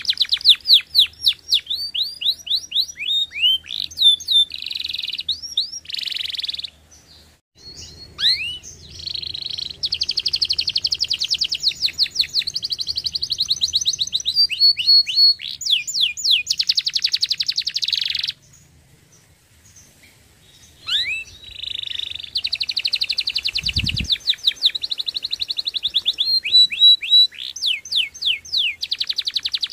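Domestic canary singing: long rapid trills of repeated notes mixed with quick rising and falling sweeps, broken by two pauses of a couple of seconds. One short low thump about three quarters of the way through.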